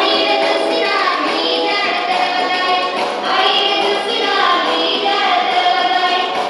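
Telugu folk song with singing over an instrumental accompaniment.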